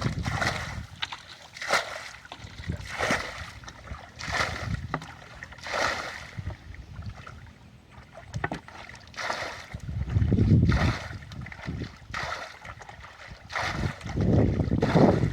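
Paddle strokes swishing through water from a small boat, roughly one every second and a half, with a few louder low rumbles, one about ten seconds in and one near the end.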